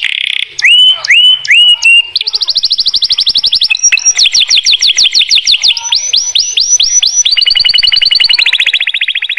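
Domestic canary in full song. A few rising upswept notes lead into a long chain of rapid trills, each a fast run of repeated high notes, and the bird switches to a new trill every second or two.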